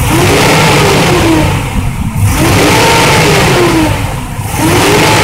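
Ford pickup's 6.2-litre V8 being revved hard while parked, three surges in quick succession, each rising and falling in pitch, with brief drops back toward idle between them; the third starts near the end.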